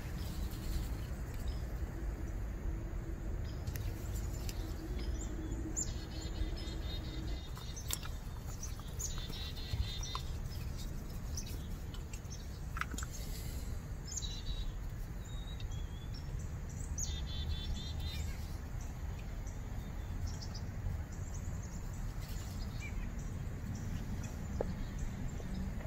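Songbirds chirping on and off in short bouts of quick high notes, over a steady low outdoor rumble, with a few faint clicks.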